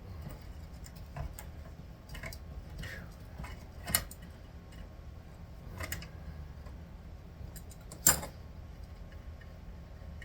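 Scattered clicks and clinks of hand tools and small metal parts being handled while a contactor is taken apart, with two sharper knocks about four and eight seconds in, the second the loudest.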